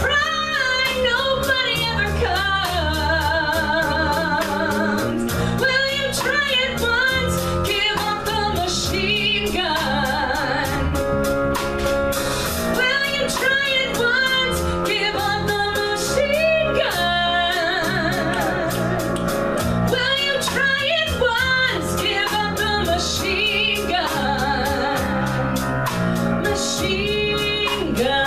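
A woman singing a pop song live into a microphone, her held notes shaking with vibrato. She is backed by a band of guitar, bass and drums keeping a steady beat.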